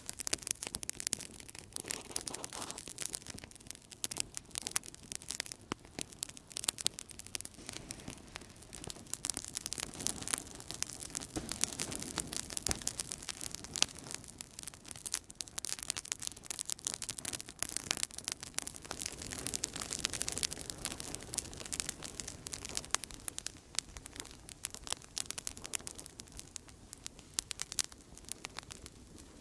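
Outdoor campfire crackling: a continuous stream of small, sharp pops and snaps over a soft low rush of burning.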